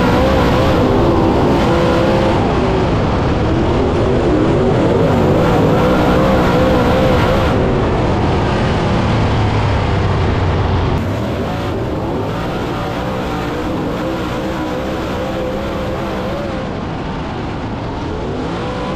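Dirt late model race car's V8 engine running at racing speed, its pitch rising and falling as the throttle comes on and off. It drops somewhat in loudness about eleven seconds in.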